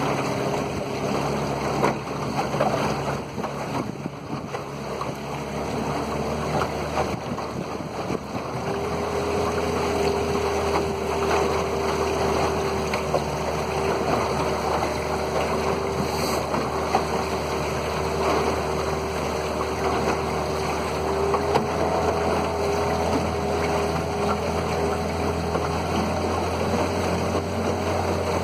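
Outboard motor pushing an aluminium boat along a river, running at a steady pitch, with water rushing past the hull. About eight seconds in, the motor settles into a clear steady tone and the sound grows louder.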